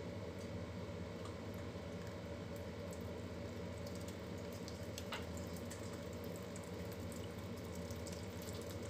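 Thin stream of tap water running steadily from a kitchen faucet into a stainless steel sink.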